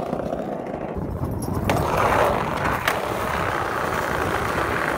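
Skateboard wheels rolling on concrete, a steady rumble, with a sharp click of the board about three seconds in.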